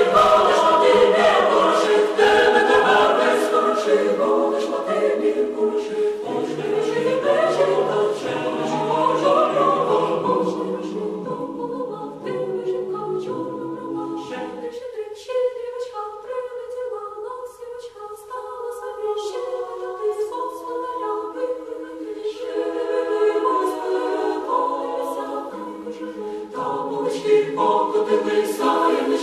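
Choir singing, several voices in harmony. The lowest voices drop out about halfway through, leaving only the higher parts, and come back near the end.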